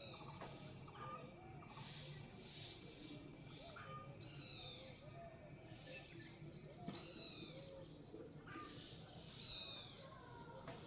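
Faint high-pitched animal calls: a high, falling call about every two to three seconds, with softer short chirps in between.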